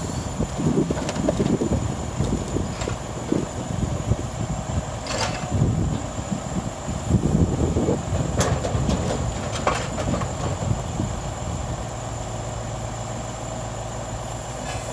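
Truck-mounted hydraulic log loader at work: the engine runs steadily with a rumble that swells and eases as the grapple swings, broken by three sharp knocks of logs striking each other or the grapple.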